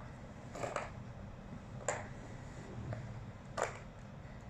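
Plastic tower-of-tracks cat toy clacking as a cat paws at it and knocks its balls around the tiers: a few sharp clacks spread out about a second or more apart, over a low steady hum.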